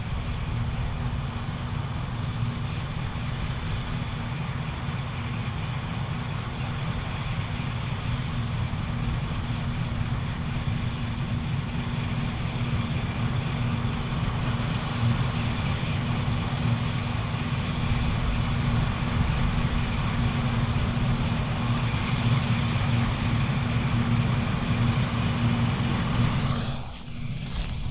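Claas Lexion 780TT combine harvester running steadily under load while harvesting barley: a deep engine drone with a constant hum over the rush of the threshing machinery. The sound dips briefly near the end.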